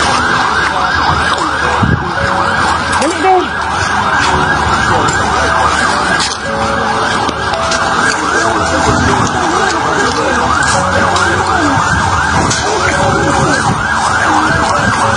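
Many alarms and sirens wailing over one another, a dense, fast-repeating warble that never lets up, in the aftermath of a massive blast.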